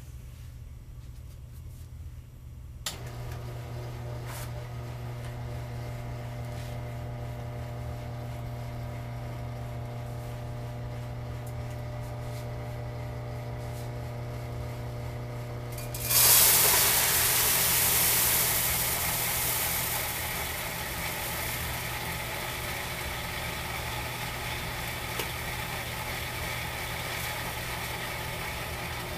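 Electric motor-driven roller grain mill switched on about three seconds in, running with a steady hum. About halfway through, malted barley is poured into the hopper and the rollers crush it with a loud rushing crunch that peaks and then settles to a steady grind over the motor.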